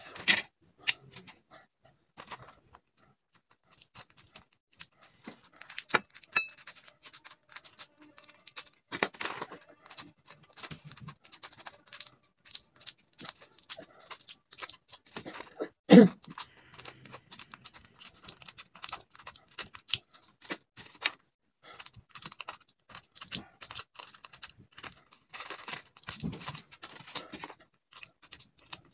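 Capsules being popped out of plastic blister packs, with tweezers puncturing and picking at the foil backing: a busy run of small crackles, clicks and scrapes of foil and plastic. One louder knock comes about sixteen seconds in.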